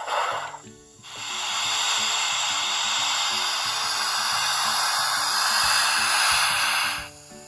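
Hornby Black Five model locomotive's DCC sound decoder playing steam-hiss effects through its small speaker: a brief hiss at the start, then a long steady hiss of about six seconds that cuts off near the end.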